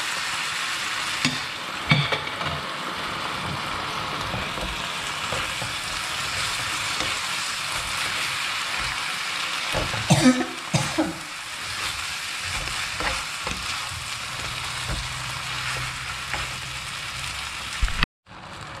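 Instant noodles stir-frying in a hot pan: a steady sizzle with the utensil stirring and scraping, and a few sharp knocks against the pan about two seconds in and again around ten seconds in. The sound cuts off abruptly just before the end.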